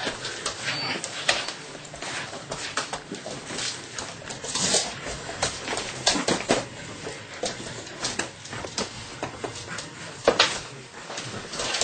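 Belgian Malinois puppy scrambling after and tugging at a bite pillow on a hard kitchen floor: an irregular run of claw clicks, scuffs and knocks.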